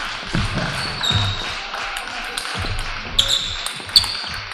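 Table tennis balls clicking off tables and paddles in a large hall, with two sharp hits a little under a second apart near the end, over a low background din.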